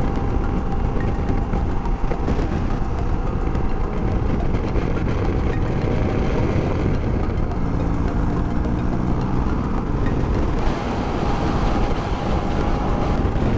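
Wind rushing over the microphone and a motorcycle engine running at highway speed, a steady hum under the noise. For a couple of seconds past the middle, a clearer engine note comes through.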